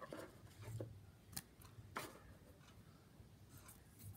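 Near silence: room tone with a few faint clicks, the clearest about two seconds in.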